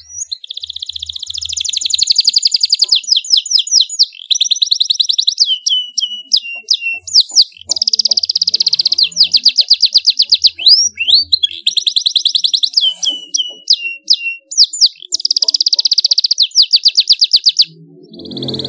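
Canary singing a loud, continuous, high-pitched song of rapid trills and rolling runs of repeated notes, with sweeping notes between phrases. The song breaks off briefly near the end.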